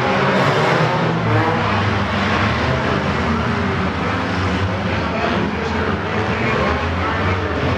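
Engines of several figure-8 derby cars running around a dirt track, a steady engine din with voices from the crowd mixed in.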